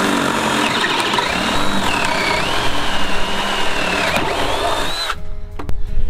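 Ryobi cordless drill boring a 1/2-inch hole through thick pine with a dull bit. The motor whine sags and recovers in pitch under load, then stops about five seconds in.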